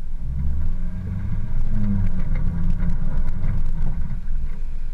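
Off-road 4x4's engine running under load on a rough dirt track, its pitch rising and falling. Clicks and knocks are heard over it in the middle of the stretch.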